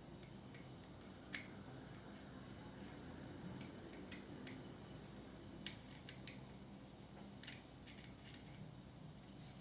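Screwdriver and plastic wall-socket parts being handled: faint clicks at irregular intervals, a few close together around the middle, over a faint steady high whine.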